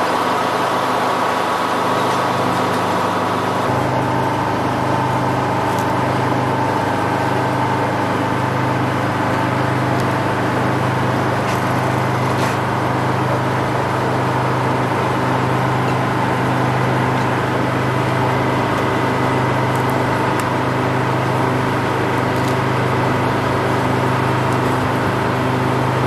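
Detroit Diesel engine driving a Frick circular sawmill, running steadily with the saw not cutting, its tone shifting slightly about four seconds in. A few faint knocks of the log being worked on the carriage.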